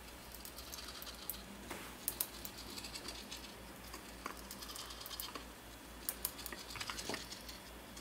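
Light clicks, taps and rattles of 3D-printed plastic parts being handled, scattered irregularly with a few sharper clicks about two seconds in and again about six seconds in.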